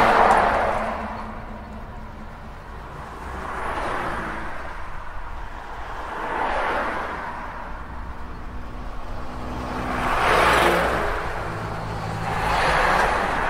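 Cars passing on a street one after another, each a whoosh that swells and fades, about five in all, over a low steady traffic rumble.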